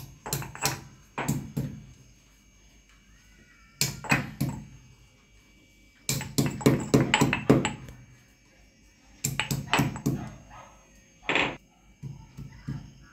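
Almonds being pounded with a stone pestle in a granite mortar, cracked coarsely into pieces. The knocks come in bursts of several strokes with short pauses between them.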